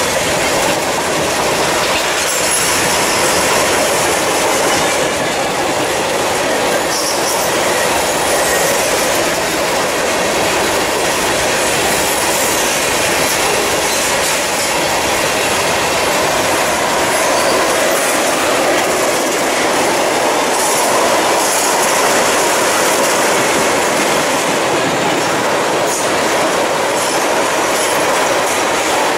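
Freight train cars rolling past close by: a loud, steady rumble and clatter of steel wheels on the rails.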